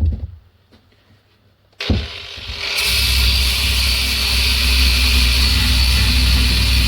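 A knock, then a variable-speed angle grinder with a sanding disc is switched on about two seconds in, set low, at about speed 2. It runs steadily, and from about three seconds in there is a loud hiss from the disc sanding metal.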